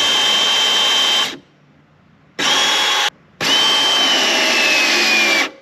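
Ryobi cordless PEX crimping tool motor whining in three runs as it closes clamps onto PEX fittings. The longest run, near the end, drops slowly in pitch as the motor loads up.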